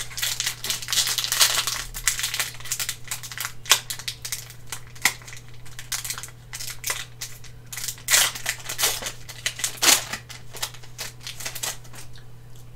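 Foil wrapper of a Pokémon trading card booster pack being torn open and crinkled by hand: irregular crackling and crinkling, loudest in the first couple of seconds and again about eight to ten seconds in.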